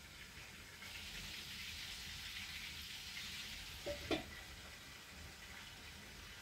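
Meat-and-cabbage cutlets sizzling in a frying pan, a faint steady hiss, with a brief knock about four seconds in.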